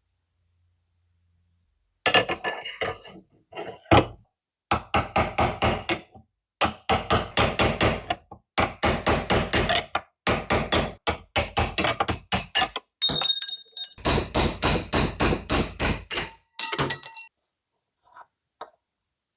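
Hammer blows on metal in quick runs of about six strikes a second, with a bright metallic ring, broken by short pauses.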